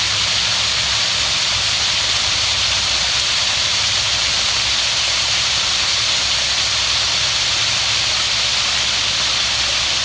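Small waterfall on a stream, a steady rush of falling water.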